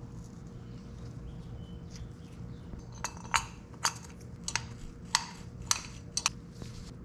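Metal parts clinking together as they are handled, about eight sharp clinks in the second half, over a steady low hum.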